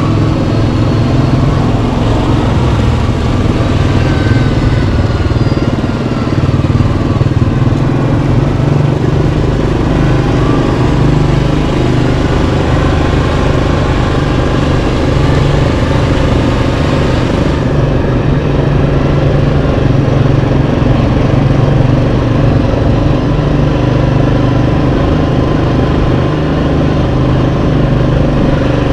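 Yamaha Kodiak 700 ATV's single-cylinder four-stroke engine running steadily as the quad rides along the trail; a hiss in the upper range drops away about two thirds of the way through.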